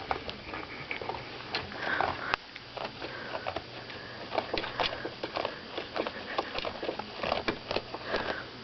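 A Labrador–border collie cross puppy sniffing close to the microphone in quick, irregular snuffles, mixed with small clicks and knocks.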